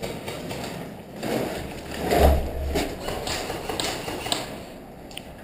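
Footsteps and knocks on a hard floor, with one heavy thud about two seconds in and a few sharp clicks after it.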